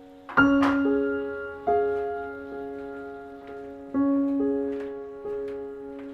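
Slow solo piano background music: notes and chords struck every second or so, each left to ring and fade away.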